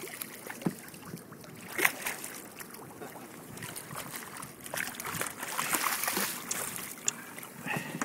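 Water sloshing and splashing against the side of a small fishing boat, swelling for a moment about five seconds in, with a few short knocks along the way.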